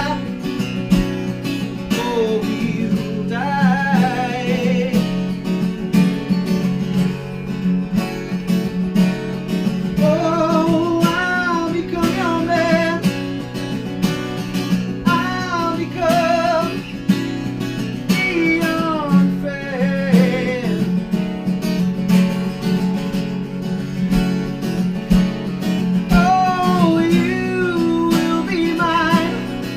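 An unplugged americana band playing live: strummed acoustic guitar under a wavering melody line with vibrato that comes and goes in phrases.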